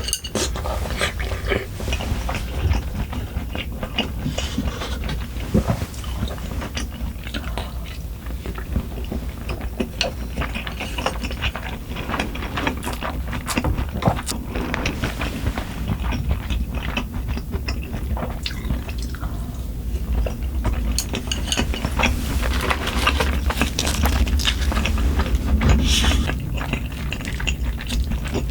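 Close-miked eating sounds: chewing food, with many short clicks and clinks of utensils against dishes.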